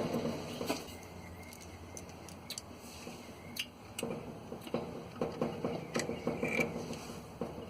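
A few faint, irregular clicks and light taps, spread out every second or so over a quiet background.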